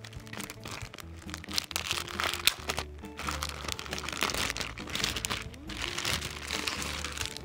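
Clear plastic bag crinkling and crackling as it is handled and opened, over background music with steady held low notes.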